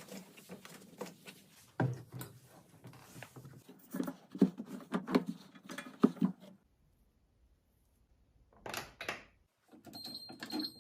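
Irregular knocking, clicking and clattering as washing machine parts are handled, stopping for about two seconds past the middle. Near the end a short high electronic beep sounds, like an appliance's control panel.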